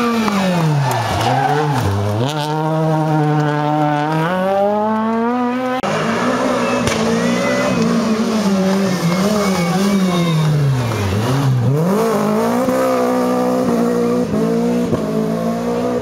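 Rally car engines passing through a tight hairpin, twice. Each time the engine note drops as the car brakes and slows for the bend, holds low briefly, then climbs as it accelerates hard away.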